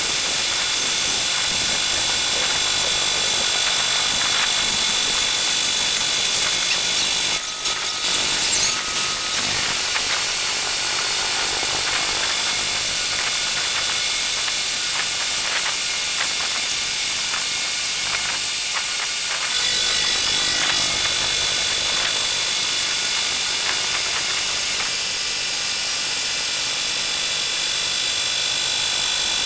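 A milling machine cutting metal with a slot milling cutter: a steady machining hiss with high whining tones. It grows louder with extra squealing tones for a couple of seconds about eight seconds in, and shifts abruptly near the twentieth second.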